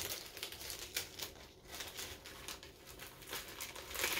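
Crinkling of a glitter-coated double-sided adhesive sheet being handled and pulled at after it has stuck to itself, in irregular rustles, with a louder crackle at the start and another near the end.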